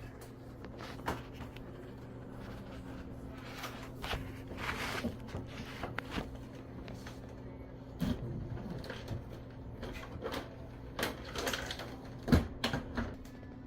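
Handling noises from wiring work: scattered knocks and clicks with stretches of scraping and rustling, over a steady low electrical hum. The loudest knock comes near the end.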